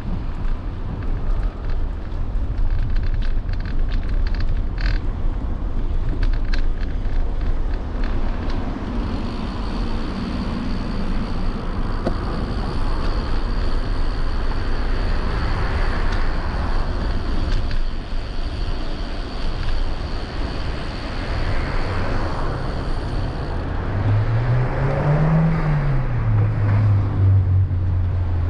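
Street sound while riding a bicycle: a steady low rumble of wind and road noise with passing traffic, and a run of clicks a few seconds in. A thin, steady high whine runs through the middle. Near the end a motor vehicle's engine rises and falls in pitch, then holds steady.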